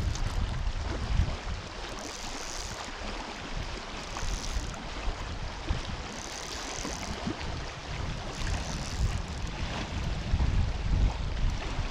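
River water rushing steadily, with wind buffeting the microphone in low gusts. A higher hiss swells and fades about every two seconds.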